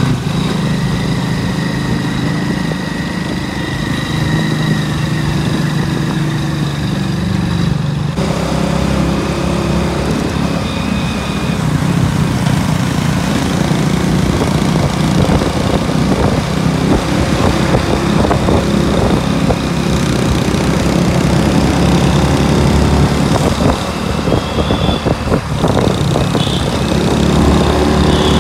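Bajaj CT100's single-cylinder four-stroke engine running steadily, with an abrupt change in its note about eight seconds in.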